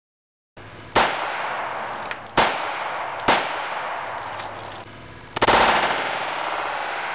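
Ruger P90 DC .45 ACP pistol fired four times into a barrel of water after about half a second of silence: three sharp shots a second or so apart, then a longer pause before a fourth shot followed by a longer loud rush of noise. A steady rushing noise fills the gaps between shots.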